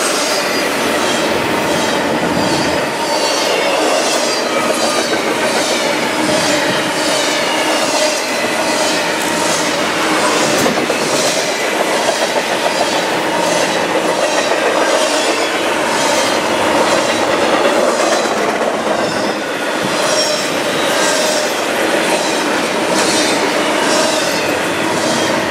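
Double-stack container well cars of a freight train rolling past at speed. A steady rolling roar is broken by regular clickety-clack as the wheels pass over rail joints.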